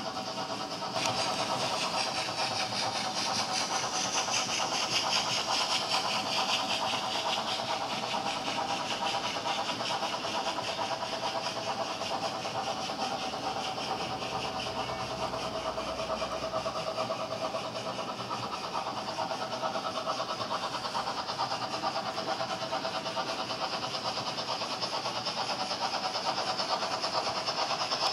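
Model railway train of tank wagons running past on the layout track: a steady, dense rattle of small wheels on the rails over a constant hum, getting louder about a second in.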